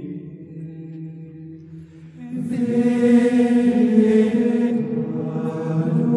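Background music of monastic chant, voices holding long sustained notes; it swells louder and fuller about two seconds in.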